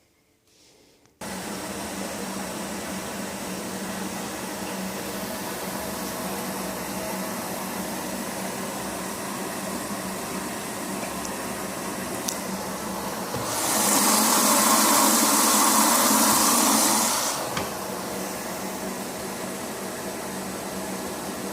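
Izola Apollo 636W washing machine starting its cycle: about a second in, a steady rush of water and a low hum begin suddenly as the machine starts filling. For a few seconds about two-thirds of the way through, the rush grows louder and brighter, then settles back.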